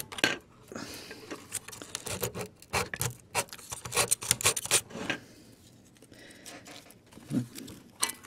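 Folded sandpaper scrubbing the corroded metal battery contacts of a cassette recorder's battery compartment, in quick short scratching strokes, to clean off corrosion left by battery leakage. The strokes thin out about five seconds in, with a single soft knock near the end.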